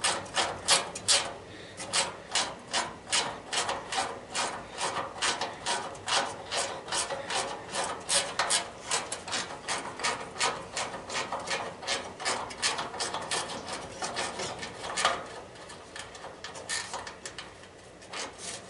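Ratchet wrench clicking in quick back-and-forth strokes while loosening a bolt, about two to three clicks a second, with the clicks thinning out and getting quieter near the end.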